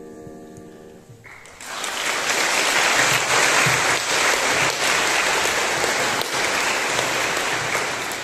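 A large audience applauding, breaking out about a second and a half in as the last held note of the music fades away.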